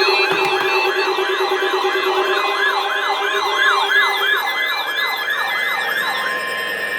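Electronic siren in a fast yelp, sweeping up and down about three times a second. The sweeping stops about six seconds in, and a steady high tone begins.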